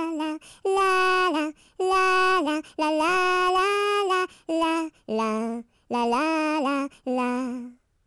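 A single voice singing a children's song melody unaccompanied, in short held notes separated by brief breaks. The last few notes drop lower, and the singing stops near the end.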